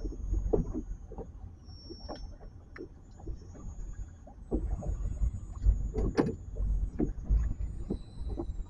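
Wind buffeting the microphone as a steady low rumble on a small boat, with scattered irregular knocks and clunks, the loudest about six seconds in.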